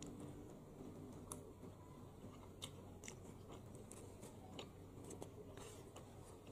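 A metal spoon scooping rice and curry fish on a banana leaf: faint, scattered clicks and light scrapes over a low steady hum.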